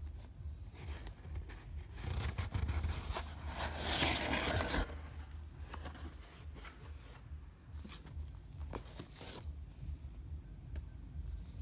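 Packaging being opened by hand: rustling, tearing and scraping, loudest from about two to five seconds in, with scattered clicks and taps around it.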